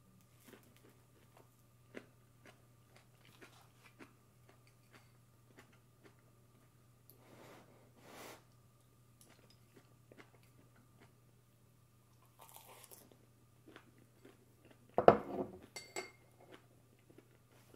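Close chewing and mouth noises of someone eating rice, with light clicks of chopsticks against a ceramic bowl. About fifteen seconds in comes a louder clatter of tableware set down on the table, ringing briefly. A faint steady low hum sits underneath.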